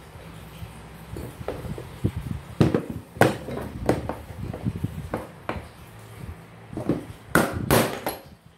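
Scattered clicks and knocks of a fan motor's metal end bracket and parts being handled and set down on a workbench, with a loud pair of knocks near the end as a hand tool is worked against the bracket.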